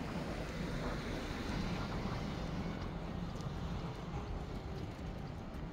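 City street ambience: a steady low rumble of road traffic mixed with wind buffeting the microphone.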